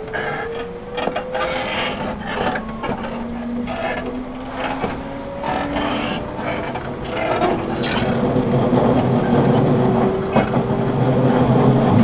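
Inside a JR 211 series 5000 electric multiple unit's motor car, the traction motors and gears whine in slowly rising pitch as the train gathers speed, over a run of knocks and rattles from the running gear and rails. It grows louder toward the end.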